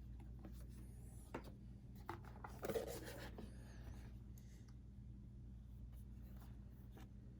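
Thick cardboard game punchboards being handled and flipped over, sliding and rubbing against each other with a few light taps. The loudest scrape comes about three seconds in, over a low steady hum.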